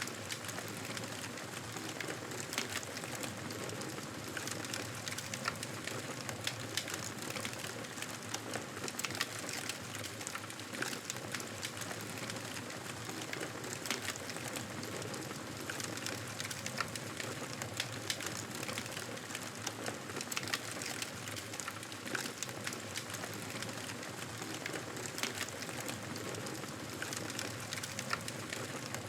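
Wood fire crackling in a fireplace: a steady hiss with many small, irregular pops and snaps.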